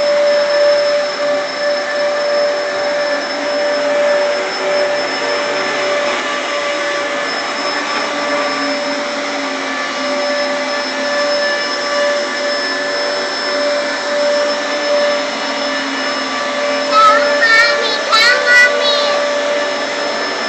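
Upright vacuum cleaner running steadily, a constant motor whine with a rush of air, as it is pushed over carpet. Near the end a young child's high voice sings or squeals briefly over it.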